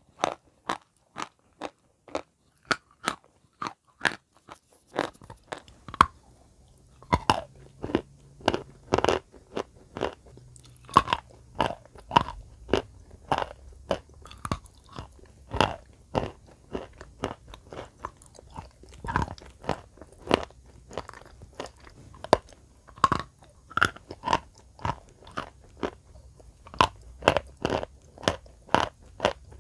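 Close-miked biting and crunching of wet chalk, a steady run of short, sharp crunches about two to three a second.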